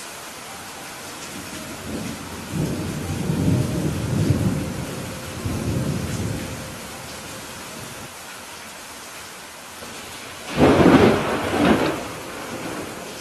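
Steady rain with rolling thunder: a long low rumble from about two seconds in to about seven seconds, then a louder, sharper thunderclap about ten and a half seconds in that rumbles off over a second or two.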